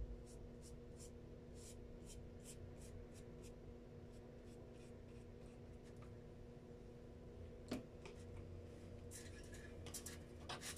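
Paintbrush stroking over paper in short, faint strokes, about three a second, that thin out after a few seconds. There is a single light tap past the middle and rustling of the paper near the end, over a steady low hum.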